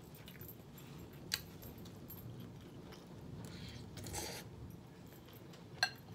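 Open-mouthed chewing of smoked turkey and cabbage, with two sharp clinks of a metal fork against a glass bowl, one about a second in and a louder one near the end.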